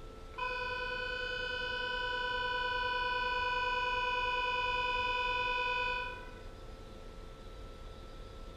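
Train departure buzzer sounding one steady, buzzing tone for about six seconds, starting just after the beginning and dying away near the end. It signals that the doors are about to close.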